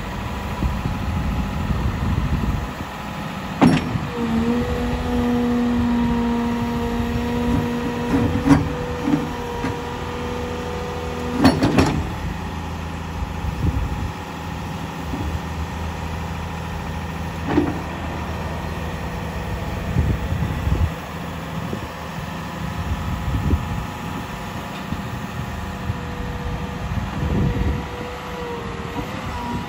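CAT M318F wheeled excavator's diesel engine running under hydraulic load as the boom, arm and bucket move, with a pump whine that comes and goes. Several sharp metallic clunks, about four seconds in, near eight and a half, eleven and a half and seventeen and a half seconds.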